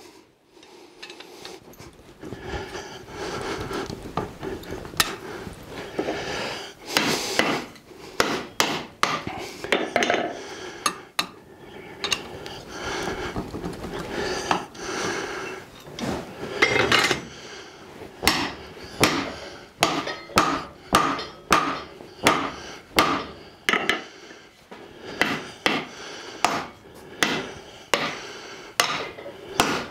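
Hand hammer blows on red-hot steel bar stock at the anvil, sharp metal strikes coming roughly once a second through the second half, over a steady background hum.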